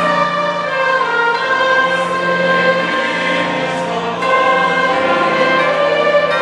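Large mixed choir singing sustained chords with an orchestra, the harmony shifting every second or so and swelling a little just after the middle.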